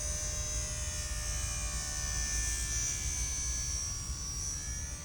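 Electric motor and propeller of a Typhoon2 RC airplane buzzing steadily in flight, its pitch drifting slightly up and down, over a low rumble.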